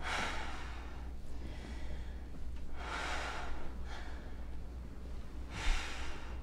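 A person breathing audibly: three long, breathy breaths about three seconds apart, over a low steady hum.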